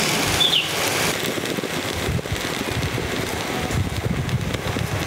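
Steady sizzling from a pot of coconut-and-cumin tempering frying over a low flame, with a low rumble underneath.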